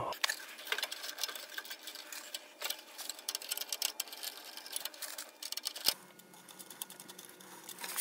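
Rapid small clicks and rustling of furnace wiring and spade connectors being handled at the control board, busiest in the first five seconds and thinning out after, with a single sharper knock just before six seconds in.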